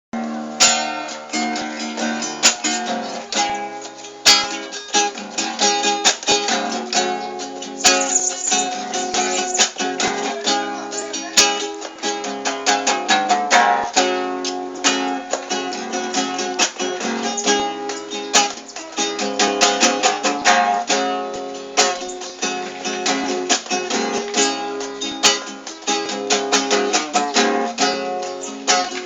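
Instrumental music of strummed and picked plucked strings, with quick sharp note attacks throughout and no deep bass.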